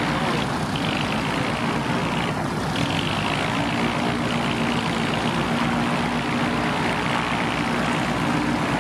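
Cavalon gyroplane's engine and pusher propeller running steadily on the ground, with the rotor spinning, ahead of its take-off run.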